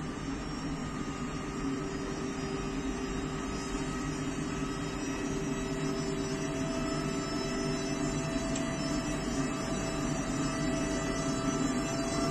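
WAG-12 electric freight locomotive's traction motors and inverters whining as it accelerates: several steady tones over a low hum, with some tones rising slowly in pitch as the sound grows slightly louder.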